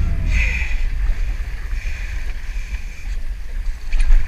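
Wind buffeting the microphone on a small fishing boat at sea, a gusty low rumble over the hiss of water and boat noise.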